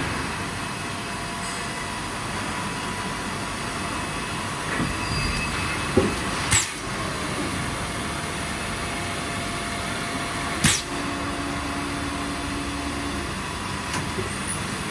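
Injection moulding machine running with a steady mechanical noise as the trickle-fill mould closes. A few sharp knocks stand out around the middle, and a short low hum follows a few seconds later.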